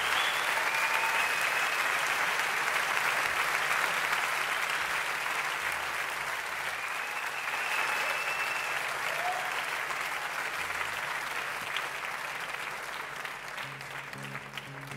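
Large theatre audience applauding, with a few whistles, the applause slowly dying down. A guitar starts playing near the end.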